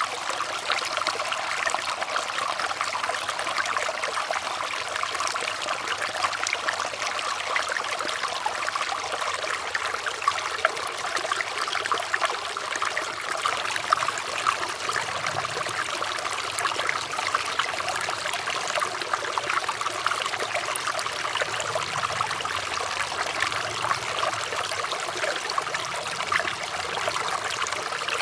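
Water trickling and splashing steadily, like a small stream or brook running over stones, bright and even with no pauses.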